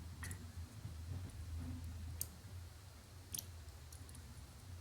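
A few small, sharp clicks of lock pins and metal parts being handled while a pin-tumbler cylinder is taken apart, over a faint low hum.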